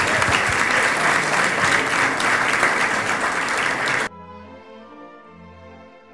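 Audience applauding, cut off suddenly about four seconds in. Then much quieter background music with held notes.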